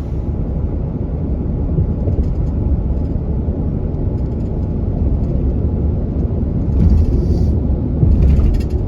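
Steady low rumble of road and engine noise inside a moving car's cabin, with two brief louder rushes of noise near the end.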